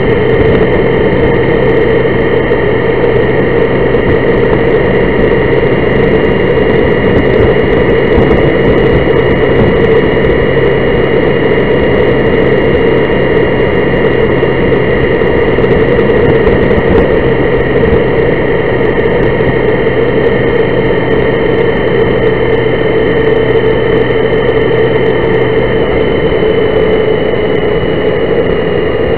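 Honda Gold Wing motorcycle cruising at a steady speed, heard from a camera mounted on the bike: a loud, even drone of engine and wind noise with several steady tones held throughout.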